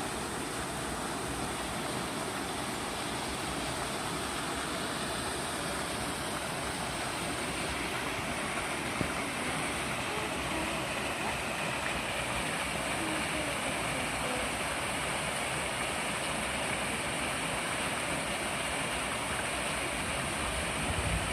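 Flowing water making a steady, even rush.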